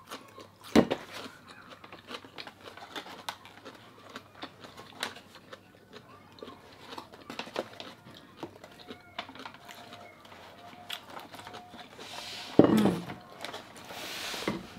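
Scattered small clicks and rustles of a cardboard doughnut box being opened and handled, with quiet chewing. There is a sharp knock just under a second in and a louder rustle about twelve and a half seconds in that lasts a couple of seconds.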